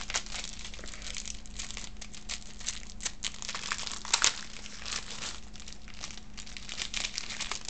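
Plastic packaging crinkling and rustling as black lace trim is taken out of its pack, in irregular crackles with a louder crinkle about four seconds in.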